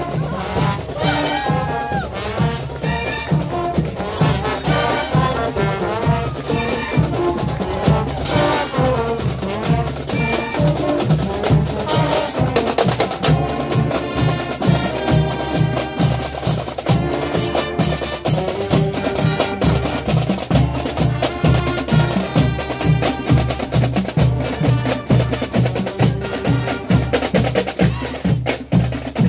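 Marching band playing while marching past: brass and sousaphones over a drumline of snare, tenor and bass drums. About halfway through, the drums' steady cadence comes to the fore.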